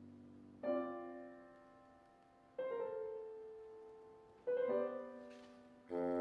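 Piano striking three soft chords about two seconds apart, each left to ring and fade. Near the end a held chord from the ensemble comes in and sustains.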